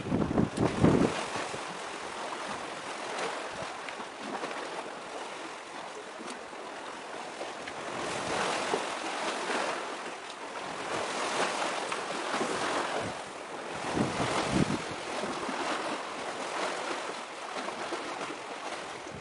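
Sea waves washing against a concrete breakwater, swelling and fading every few seconds, with wind gusting on the microphone.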